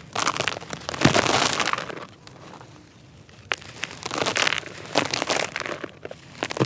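Dry, soft, dusty bricks crumbling and crunching in a tub: two stretches of crackling with sharp snaps, with a short lull between them.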